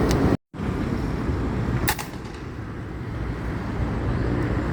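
A single sharp airgun shot about two seconds in, over a steady low rumble of background noise. The sound cuts out to silence for a moment near the start.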